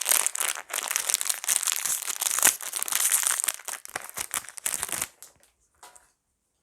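Foil Pokémon card booster pack wrapper crinkling and being torn open, a dense crackle that stops about five seconds in.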